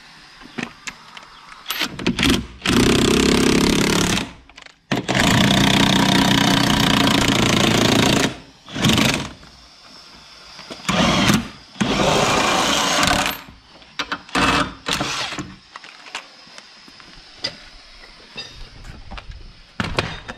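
Cordless impact wrench hammering in about six bursts, the longest about three seconds, as it drives the screw of a bead-breaker tool to push a tractor tyre's bead off the rim.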